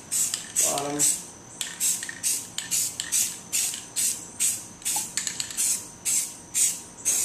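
Aerosol spray-paint can of primer hissing in short bursts, about two a second, as quick passes are sprayed across an airsoft gun.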